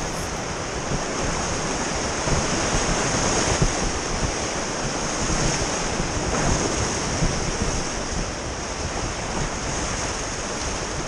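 River rapids rushing around a canoe running whitewater: a steady, fairly loud rush of water.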